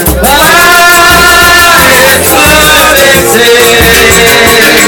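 Live samba band playing loudly with bass and singing. A voice holds one long, slightly wavering note for about the first two seconds.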